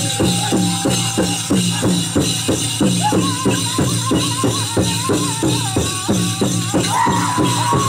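Powwow drum group singing a men's chicken dance song over a steady, fast beat on a large bass drum, about three beats a second. High, wavering singing voices come in about three seconds in and grow stronger near the end.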